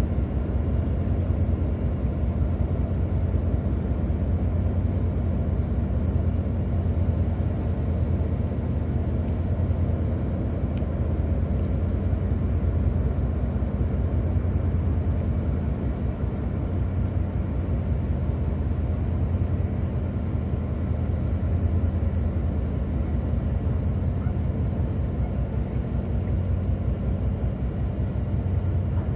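Engines of the patrol vessel PM-27 Yoshino running steadily as she gets under way, a continuous low drone with a deep hum.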